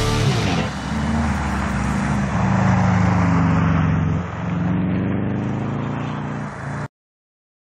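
Car engine running hard as it is driven on an ice track, its pitch climbing steadily, easing off twice and climbing again. The sound cuts off abruptly near the end.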